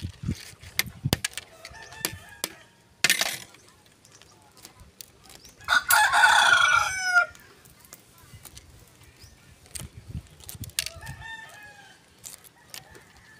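A rooster crows once about six seconds in, the loudest sound, its call falling away at the end. Around it, small clicks and cracks of eggshell being tapped with a knife and peeled off grilled eggs, with fainter bird calls.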